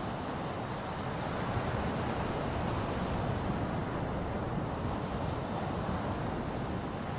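Ocean surf: a steady wash of breaking waves, swelling and easing gently.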